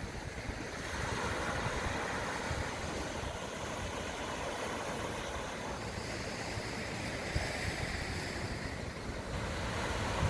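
Sea waves washing onto the shore, the hiss of the surf swelling twice a few seconds apart, over a low rumble of wind on the microphone.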